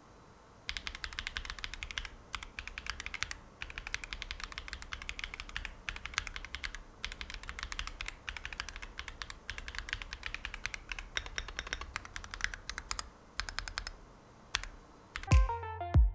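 Fast typing on an Akko ACR Pro 68 gasket-mount mechanical keyboard with crystal switches: dense runs of key clicks in bursts with short pauses. Near the end, electronic music with heavy bass hits starts.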